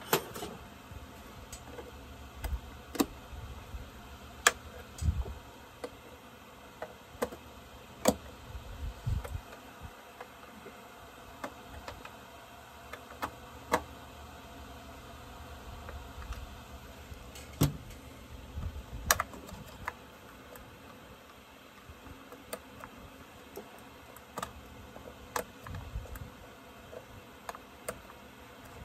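Irregular clicks and knocks of parts and hand tools being handled on an Echo CS-7310 chainsaw during reassembly, with a few low thuds.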